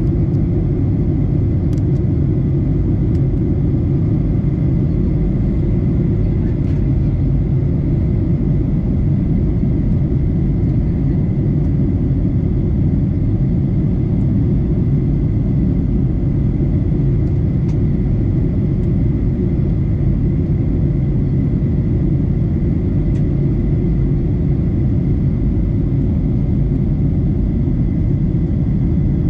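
Steady cabin noise of a Boeing 737-800 in flight, heard inside the cabin: a deep, even rumble from its CFM56-7B turbofan engines and the airflow, with a faint steady high whine over it.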